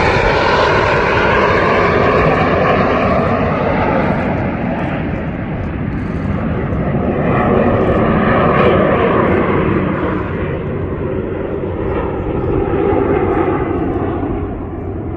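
Canadian Forces Snowbirds' CT-114 Tutor jets flying past. A rushing jet noise carries a whine that falls in pitch as the aircraft pass, with a second pass about eight seconds in.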